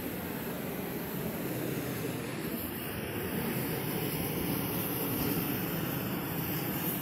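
LPG gas torch burner flame heating a roll of APP torch-on bitumen membrane as it is unrolled, a steady rushing noise that grows slightly louder in the middle.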